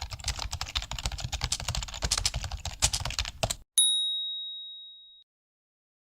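Rapid typing, a dense run of key clicks for about three and a half seconds, then a single bright ding that rings out and fades over about a second and a half.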